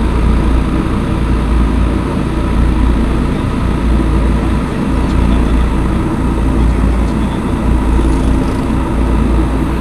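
Mutsu Bay ferry Kamoshika's engines running steadily under way as the ship leaves port, a low drone mixed with wind buffeting the microphone on the open deck.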